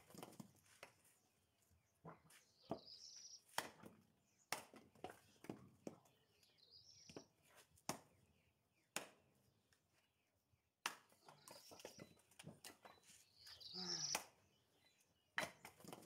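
An axe chopping firewood on a wooden chopping block: sharp wooden chops and knocks come every second or two, with short pauses as blocks are set up and split pieces are tossed aside.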